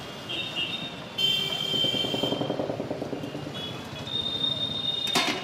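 Road traffic with vehicle horns sounding one after another, over a passing engine's drone. A short sharp knock near the end.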